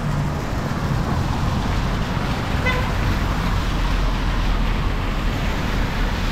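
Steady road traffic noise from passing cars, with one short horn toot about two and a half seconds in.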